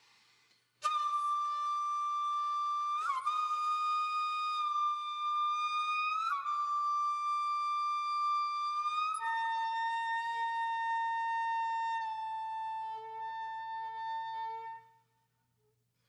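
Background music: a slow, breathy melody of a few long held notes, each opening with a short upward slide, with a lower final note that fades out a second or so before the end.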